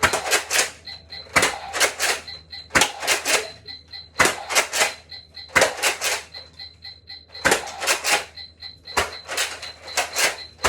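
Airsoft gun shots fired one after another, about one every second and a half, each sharp crack followed by a short clatter. A faint, high, evenly pulsing tone runs underneath.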